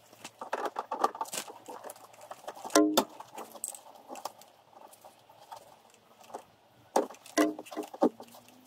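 Clicks, rattles and knocks of a plastic wheel arch being pressed and fitted against a car's bodywork, with a few short squeaks. The loudest knock comes about three seconds in.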